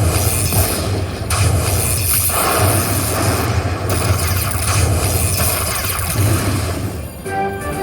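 Slot machine bonus-game sound effects: a loud, noisy rumble over a low hum, with short chiming notes near the end.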